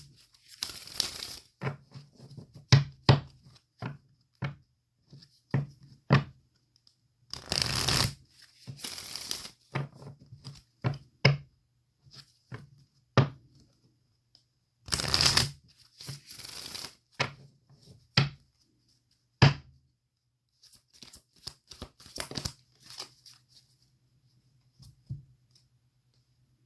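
Deck of oracle cards being shuffled by hand: three bursts of shuffling, each a second or two long, with sharp taps and clicks of the cards in between.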